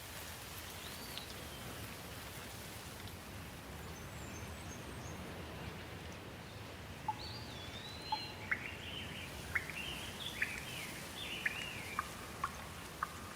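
Birds calling over a steady background noise: one call about a second in, faint high chirps around four seconds, then from about seven seconds a busier run of quick chirps and sharp notes.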